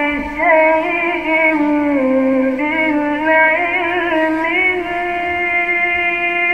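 A male Quran reciter's voice in melodic, drawn-out mujawwad recitation. It winds through ornamented melismatic turns, then holds one long steady note for the last couple of seconds.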